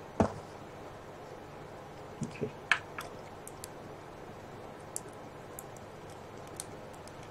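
Small plastic clicks and knocks from the parts of an SDX action figure being handled and adjusted by hand: a sharp knock just after the start, two soft thumps and a sharp click about two and a half seconds in, then scattered faint ticks.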